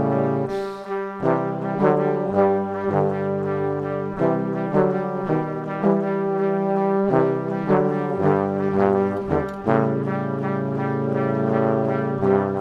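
Background music: held chords under a melody of notes that change about twice a second.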